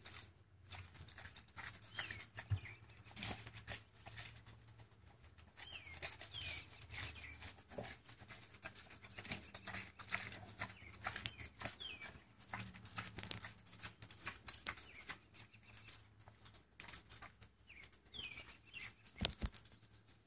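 A pot-bellied pig chewing iceberg lettuce and smacking its lips, an uneven run of quick clicks.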